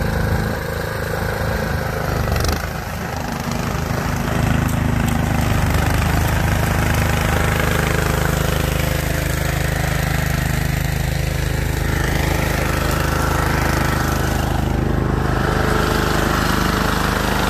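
Two-stage snowblower's engine running steadily under load as it clears snow, its chute throwing a stream of snow. The level dips briefly about two seconds in, then holds steady.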